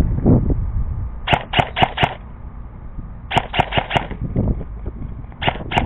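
Airsoft guns firing in quick strings of sharp pops: four shots, then four more about two seconds later, then a few more near the end.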